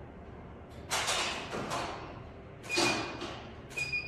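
Studio strobe flashes firing one after another, each a short sharp hiss-like burst, four in all. A short high beep sounds twice as a strobe signals that it has recycled and is ready.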